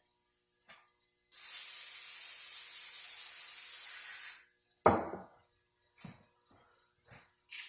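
A steady spraying hiss for about three seconds, then a sharp knock and a few lighter clicks as metal transmission parts are handled.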